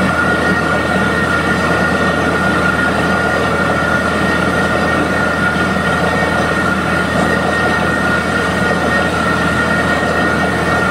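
Borewell drilling rig running at full work, drill pipe turning in the hole while water and cuttings spray out around it at the well head. A loud, even din with a steady high whine over it.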